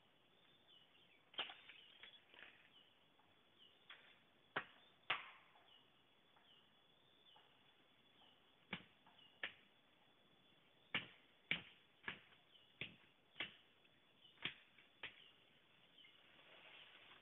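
A blade chopping at bamboo: about a dozen sharp, separate strikes at an uneven pace, a few at first and then a quicker run of blows in the second half.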